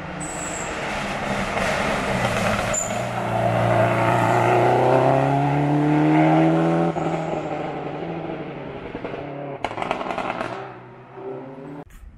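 A hillclimb race car accelerating through a hairpin and past, its engine note rising steadily in pitch and loudness to a peak about six seconds in. The engine drops sharply at an upshift about seven seconds in, then fades away.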